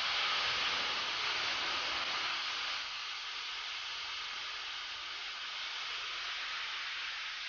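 Steam locomotive venting steam: a steady loud hiss, strongest for the first few seconds, then easing a little and holding.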